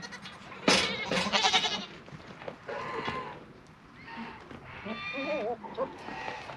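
Goats bleating, several calls, the loudest about a second in, as they wait to be fed.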